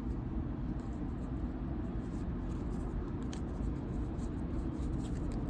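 A steady low rumble of background noise, with a few faint ticks and slides from trading cards being handled.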